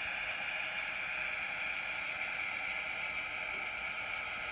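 HO scale Fairbanks-Morse diesel locomotive model running along the track, its Tsunami DCC sound decoder playing a steady diesel engine sound through the model's tiny speaker, thin and with almost no bass.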